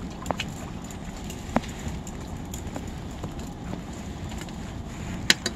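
Steady low rumble of wind on the microphone, with scattered sharp clicks and taps and a quick run of louder clicks near the end.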